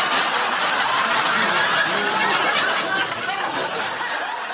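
Many people laughing at once, a dense crowd of laughter that dies away near the end.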